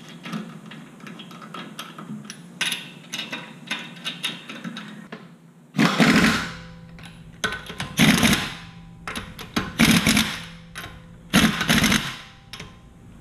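Light metallic clicks of lug nuts being threaded onto wheel studs by hand, then from about six seconds in a Husky pneumatic impact wrench runs the lug nuts down in several short bursts, each about a second long.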